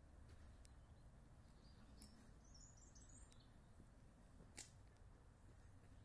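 Near silence: faint outdoor ambience with a low steady rumble, a few faint high bird chirps about halfway through, and one sharp click about three-quarters of the way in.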